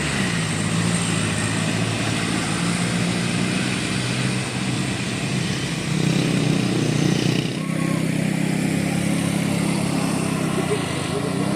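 Heavy bus engine running under load on a hill climb, a steady low drone that swells louder about six seconds in and eases off shortly after.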